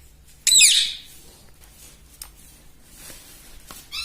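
Ring-necked parakeet giving one short, loud, high screech about half a second in, followed by faint clicks and the start of another call at the very end.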